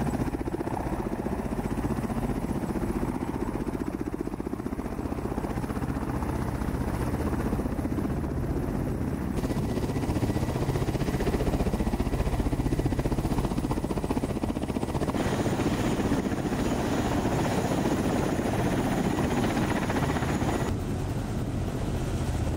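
Kamov Ka-52 attack helicopter running, its coaxial rotors and turbine engines giving a steady noise with a fast, even blade beat. The sound changes character abruptly three times, at about 9, 15 and 21 seconds in.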